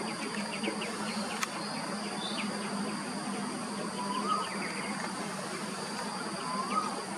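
Outdoor ambience of a steady high-pitched insect drone over a low steady hum. A bird gives a short rising-and-falling call every two or three seconds, and there are quick runs of chip notes near the start and again about two-thirds of the way through.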